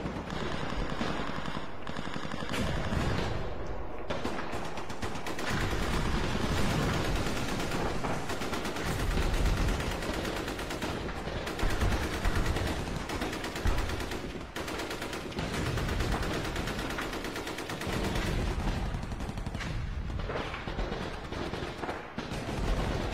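Sustained battle gunfire: dense, rapid automatic weapons fire with no let-up, and a few louder shots about halfway through.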